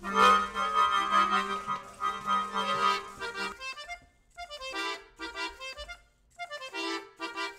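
Piano accordion playing: a long held chord over a low drone note for about three and a half seconds, then a run of short, separate chords with brief silences between them.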